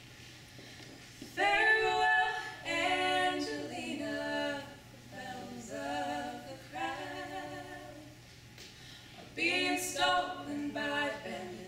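A small group of women singing a folk song in close harmony without accompaniment. The voices come in about a second and a half in and sing in phrases, with a short pause a little past the middle before the next line.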